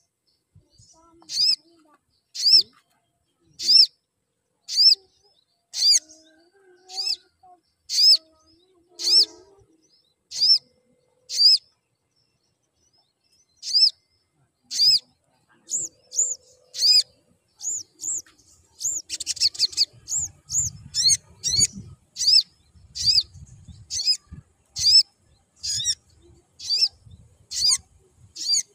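Male olive-backed sunbird (sogon) giving sharp, high chirps, about one a second at first. After a short pause near the middle the chirps come quicker, in close runs, with some low rumbling beneath them.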